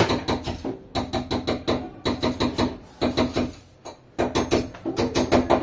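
Rapid hammer blows, about six a second, struck in quick runs with short pauses between, each blow carrying a brief ringing note.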